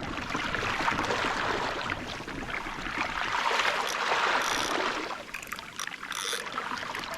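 Seawater rushing and splashing along a moving fishing kayak's hull, a steady wash that eases off after about five seconds.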